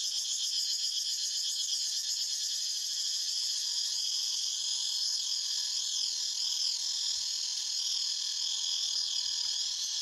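A dense chorus of cicadas buzzing steadily, a continuous high-pitched shrill that stays even throughout.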